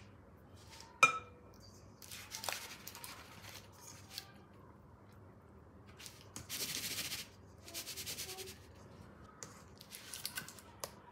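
A spatula clinks once against the rim of a metal springform cake pan, ringing briefly, followed by scraping as batter is spread, then several bursts of rustling and scraping as the pan is shifted and shaken on a cloth-covered table to level the batter.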